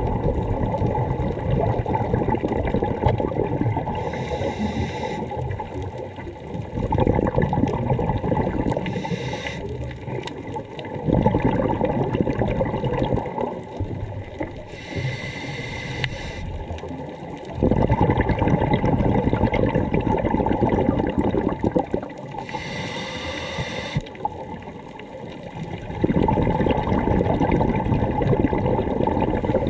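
Scuba diver breathing through a regulator, heard underwater: four short hissing inhales, each followed by a longer gurgling burst of exhaled bubbles, in a slow repeating cycle.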